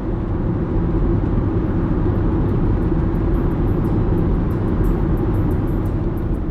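Steady road and engine noise of a car driving at motorway speed, heard from inside the cabin: an even low rumble with a constant drone.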